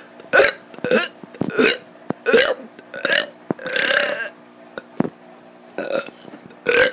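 A kid burping over and over: five short burps in quick succession, then one longer drawn-out burp about four seconds in, a short pause, and two more short burps near the end.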